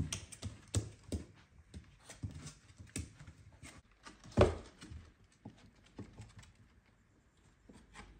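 A miniature dachshund puppy's paws and claws scampering on wooden floorboards: irregular light taps and clicks, with one louder thump about four seconds in and a quieter spell near the end.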